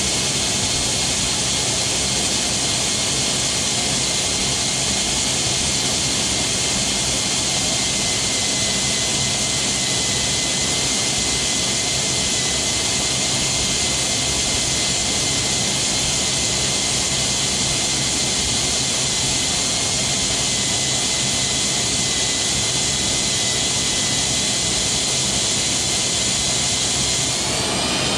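A power drill runs steadily with a high whine as it bores a pilot hole into a seized, broken cam plate bolt to take a screw extractor. Its pitch rises near the end.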